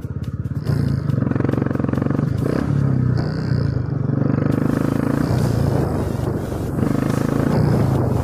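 Motorcycle engine running as the bike pulls away and rides slowly in traffic, getting louder about a second in, then holding a fairly steady note with small changes in revs.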